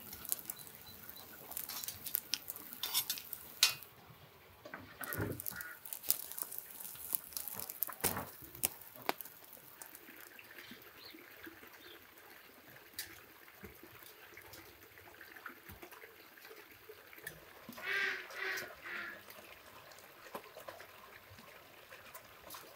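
Metal tongs and skewers clinking and tapping on a charcoal grill grate, in scattered light clicks. A bird calls briefly about five seconds in, and again in a short series of notes about eighteen seconds in.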